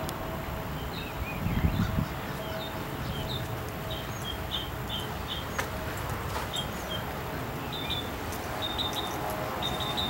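Small birds chirping: many short, high chirps repeating, with a brief low rumble about a second and a half in.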